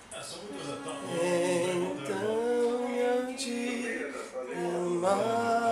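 A voice singing a slow tune in long held notes.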